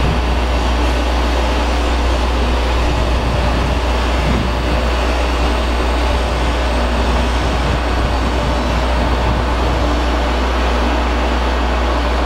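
KTX-Sancheon electric high-speed train humming steadily at the platform and slowly pulling out past the listener. It is an even, continuous drone with a strong low rumble and no distinct clanks or horn.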